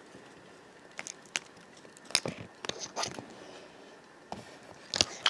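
Small plastic toy figures and miniature props being handled and set down, giving a scatter of light clicks and taps, with a louder knock near the end.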